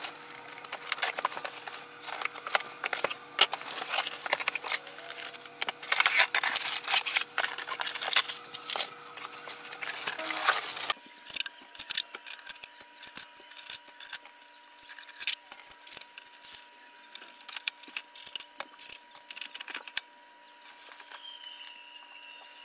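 Unboxing handling noise: a blade cutting into a cardboard printer box, with cardboard and packing being scraped, rustled and knocked. About halfway through it gives way to sparser taps and knocks of hands handling the plastic printer and peeling off its tape.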